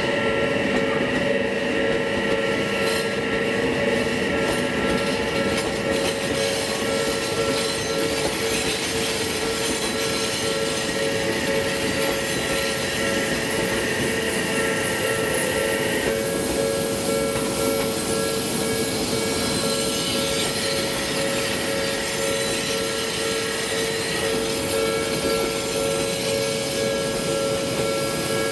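Japanese level-crossing alarm ringing continuously as Odakyu electric commuter trains run through the crossing. Some of the higher tones drop away about halfway through.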